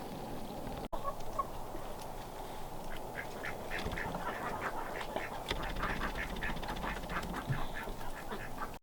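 Ducks quacking in a quick, chattering run of short calls that starts a few seconds in, over a steady background rush.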